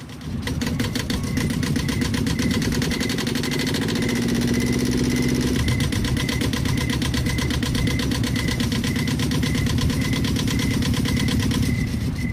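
Small river motorboat engine (a bhotbhoti) chugging steadily, then dying away near the end as the boat stops.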